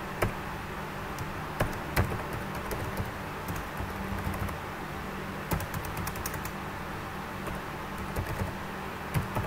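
Typing on a computer keyboard: irregular runs of keystroke clicks with short pauses between them, over a low steady hum.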